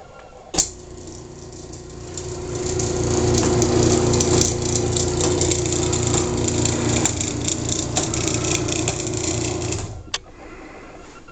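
Craftsman half-horsepower garage door opener running a cycle. A sharp click comes about half a second in, then the motor starts and runs with a steady hum and rattle for about nine seconds. It stops, and a second click follows.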